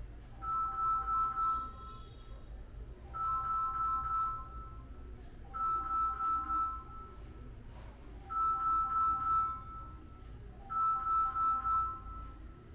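Electronic ringing tone repeating in even bursts, each a quick run of pulsing notes, about every two and a half seconds, over a low steady hum.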